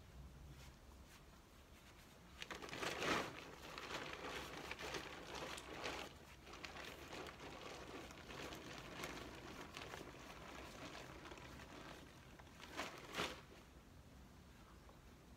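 Tent fabric rustling and crinkling as it is handled and folded up, with a louder burst of rustling about three seconds in and another near the end.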